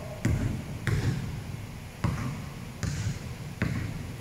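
A basketball being dribbled on an indoor court floor: about five separate bounces at an uneven, unhurried pace, each a sharp thud that echoes in a large gym.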